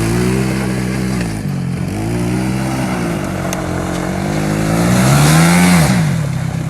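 125cc Coolster ATV's single-cylinder four-stroke engine revving up and down as it is ridden. The pitch dips about a second and a half in, then climbs to its loudest near the end before easing off.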